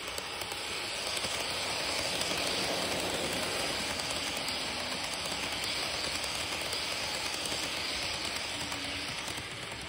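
N-gauge model train, a Seibu 30000 series EMU model, running past on its track: a steady rushing hiss of wheels and motor that swells about a second in and eases off near the end.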